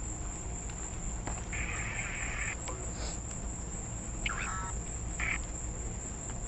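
Night insects trilling steadily over a low background rumble, with short louder bursts of buzzing about a second and a half in and again near five seconds.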